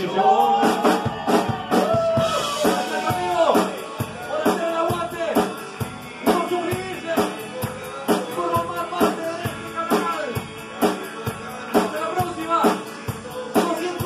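Live rock band playing: a man singing over electric and acoustic guitars and a drum kit keeping a steady beat.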